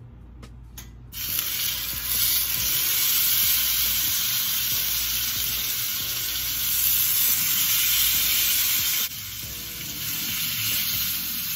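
Filet mignon steaks hitting very hot vegetable oil in a preheated cast iron skillet and sizzling: the sizzle starts suddenly about a second in and runs loud and steady, then drops abruptly to a quieter sizzle near the end.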